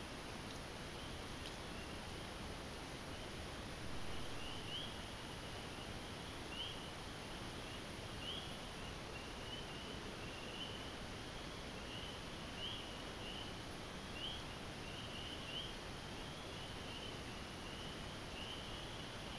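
Distant night chorus of frogs: short high rising peeps, one every second or two, over a steady high-pitched trill, with a faint background hiss.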